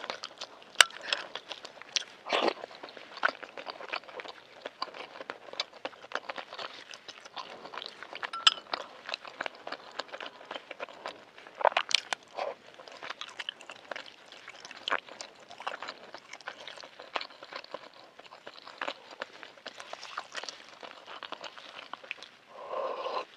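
Close-miked wet chewing and lip-smacking of a person eating balut (fertilized duck egg), with many small sharp clicks from the mouth.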